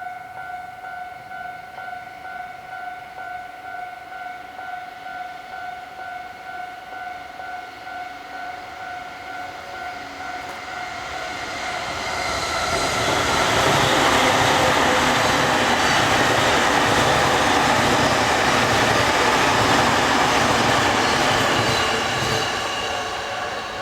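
Japanese level-crossing warning bell ringing its steady, pulsing electronic 'kan-kan'. About halfway through, a JR Sobu Line train passes over the crossing, its rumble and wheel clatter drowning the bell for about ten seconds before it fades and the bell is heard again near the end.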